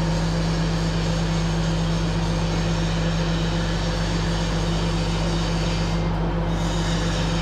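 A steady machine drone with a strong low hum and a few fixed tones above it, unchanging in level.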